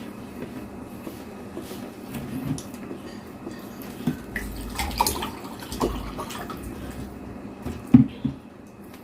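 Close-up eating sounds: chewing of fried eggplant with egg, with scattered small clicks and a louder knock about eight seconds in.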